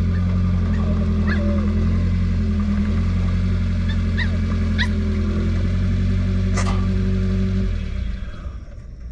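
A motor running with a steady low hum that cuts out near the end. A few short high dog yelps or whines sound over it.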